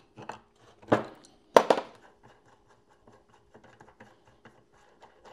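Metal tool handling on a homemade threaded-rod press that pushes a pulley onto a power steering pump shaft: two sharp clanks about a second and a second and a half in, then faint ticking and scraping as the pulley is worked down.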